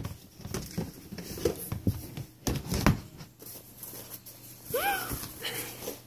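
Hands rummaging through a box of mystery slime sacks and buckets: rustling with a few knocks of plastic.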